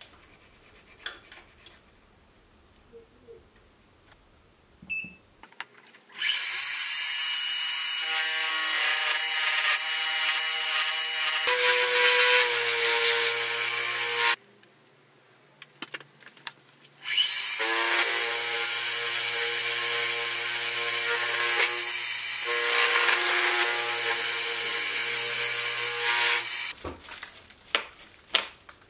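Milling machine spindle spinning up with a rising whine and running steadily as an end mill cuts the ratchet pin slots in a part held in a dividing-head chuck. It stops for about three seconds, spins up and runs again, and stops near the end. Light clicks and taps of handling come before and after.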